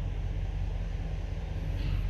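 Chevy Suburban V8 engine idling steadily with a low, even hum. The engine is freshly overhauled and has a misfire that the mechanic says is hardly felt at idle and shows when the throttle is blipped and released.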